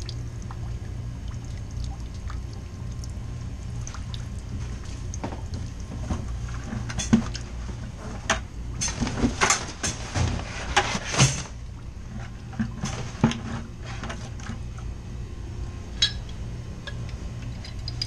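Leftover water trickling from a strainer drain into a plastic bucket over a steady low hum. A run of sharp clacks and knocks sounds in the middle, with one more near the end.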